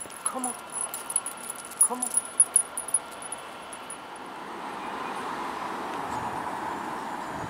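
Small metal tags and lead clips jingling on two dogs' collars as they walk, with two short falling sounds among the jingle. From about four and a half seconds in, a steady rush of wind and a moving train takes over.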